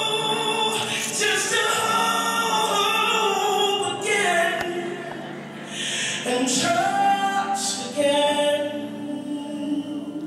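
Gospel worship song playing: voices singing long, held notes that slide between pitches.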